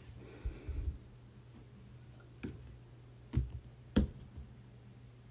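A few light taps and clicks of a trading card being picked up and handled on a table. There are a couple of soft low knocks about half a second in, then three sharper clicks between about two and a half and four seconds in.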